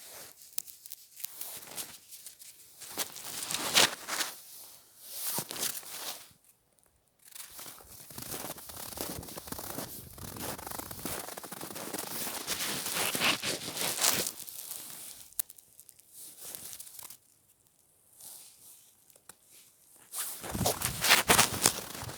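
Footsteps crunching in snow, an uneven series of crunches with a few short pauses, growing louder near the end.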